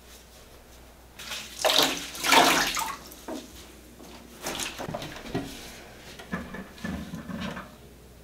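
Water wrung from a soaked towel splashing into a plastic bucket as the last water is bailed out of a toilet bowl. The loudest splashing comes about a second in and lasts under two seconds, followed by smaller splashes and drips.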